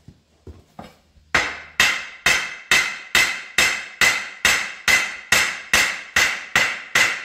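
Steady hammer blows on a steel Firestone RH-5 split-rim truck wheel, about two a second, each strike ringing. The blows drive the rim half over the tyre bead during reassembly. A few light taps come first, and the steady blows begin about a second in.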